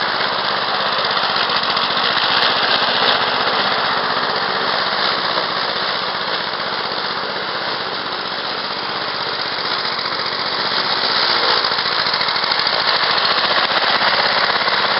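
Honda single-cylinder four-stroke lawn mower engine running steadily under load with its blade spinning, a rapid even putter. It grows a little fainter around the middle and louder again in the last few seconds as the mower drives away and comes back.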